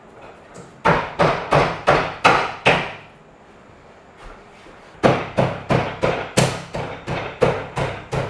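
Two runs of sharp knocks, about three a second, as blows seat a bathroom pod's plastic wall panel into its floor pan: about six strikes starting a second in, then about ten more from about five seconds in.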